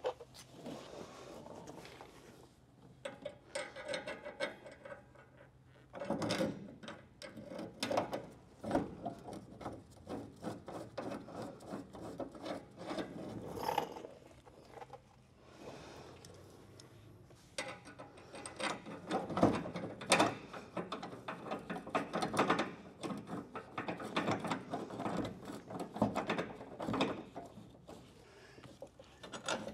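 Hand tools and bolts worked on a car door hinge: bursts of rapid metallic clicks and clinks, like a ratchet wrench and loose hardware, with a short lull around the middle.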